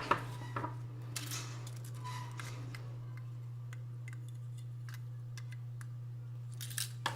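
Small plastic clicks and rustling as a magnetic reed-switch door/window alarm sensor and its magnet are handled, a few clicks at the start and again near the end, over a steady low hum.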